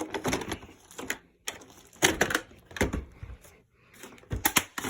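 Hard plastic parts of an upright vacuum knocking and clicking as they are handled and fitted together: a series of sharp clicks and knocks at irregular intervals, with a cluster near the end.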